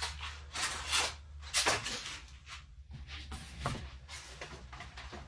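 Handling noises from unpacking a shipment: a few short rustles and knocks, spaced a second or so apart, as packaging and boxed paint bottles are moved about.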